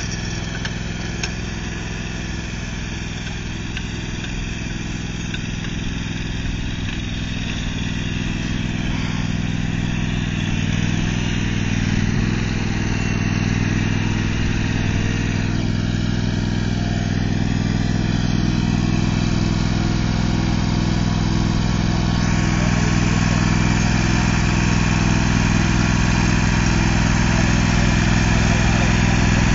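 John Deere X534 lawn tractor's engine running steadily as it drives across the turf towing a seeder. It grows gradually louder as the tractor comes closer.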